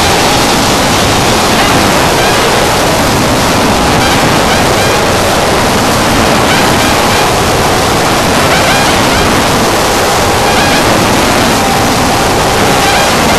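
Harsh noise music: a loud, steady wall of dense static-like noise, with a faint steady tone running through it and small chirping squiggles higher up.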